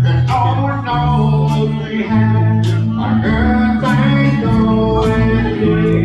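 Live country band playing honky-tonk: a male voice sings over guitar and a walking bass, with sharp hits about once a second keeping the beat.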